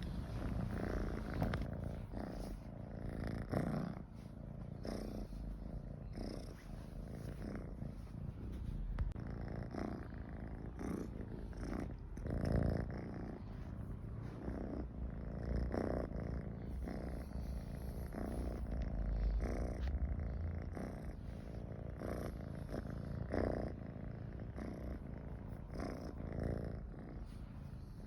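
Domestic cat purring steadily and continuously, swelling in regular pulses about once a second.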